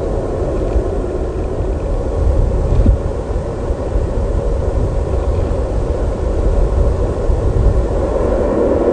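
Steady, loud low rumble with a fainter hiss above it: wind buffeting an outdoor nest-camera microphone.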